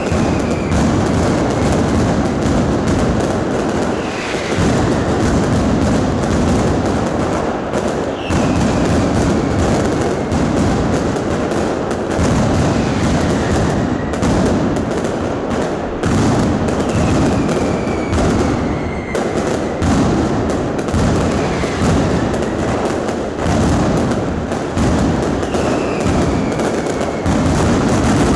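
Aerial firework shells launching and bursting overhead in quick succession: a near-constant barrage of bangs and crackle, with a short whistle that falls in pitch about every four seconds.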